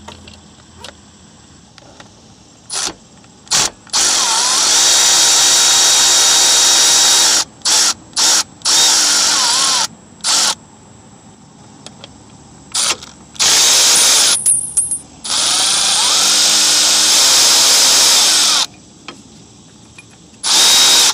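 Cordless power tool spinning a 14 mm socket on the Jeep's power steering pump bracket bolts to remove them. It runs in bursts: three long runs of a few seconds, each winding up with a rising whine, with short blips between them.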